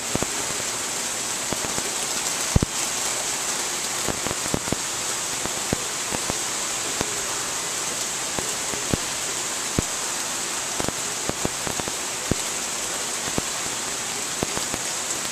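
Rain falling steadily, a constant hiss, with scattered louder drops ticking irregularly on nearby surfaces.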